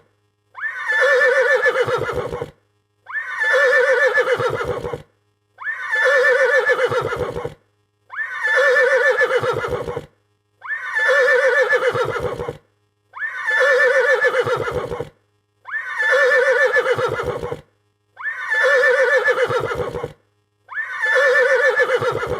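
Frightened horse neighing: the same whinny repeated about every two and a half seconds, nine times. Each call is loud and high at first, falls in pitch, and ends in a low fluttering rattle.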